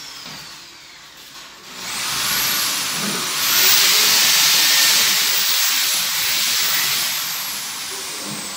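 Electric drill boring into the steel ceiling framing: a hissing whir that builds about two seconds in, runs strongest through the middle, and fades near the end.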